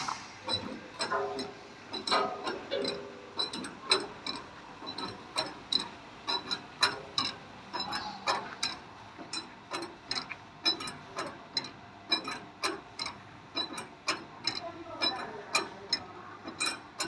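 Rotary sand sieving machine running, giving a rapid, irregular clatter of sharp clicks and knocks, several a second.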